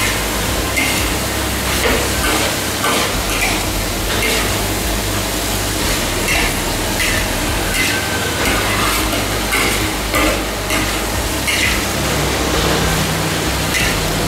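Long beans and pumpkin stir-frying in a metal wok: a steady sizzle, with a metal spatula scraping and tossing the vegetables about once a second.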